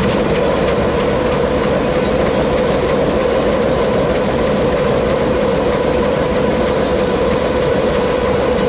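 A 48-class diesel-electric locomotive's engine running steadily at close range, a steady whine over a low rumble.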